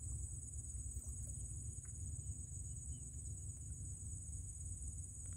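Steady high-pitched chorus of crickets or similar insects at dusk, over a low, constant rumble.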